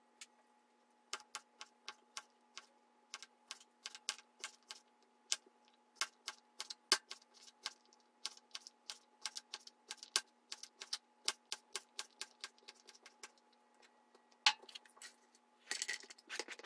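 A knife chopping zucchini trimmings into thin strips on a plastic cutting board: quick, irregular knocks, a few a second, stopping about 13 seconds in. Near the end there is a short rustle as the strips are dropped into a baking dish, and a faint steady hum runs underneath.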